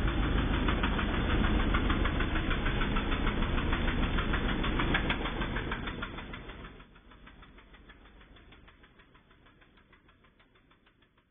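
Riding lawn mower engine running with an even pulsing beat. It holds steady, then fades away from about six seconds in.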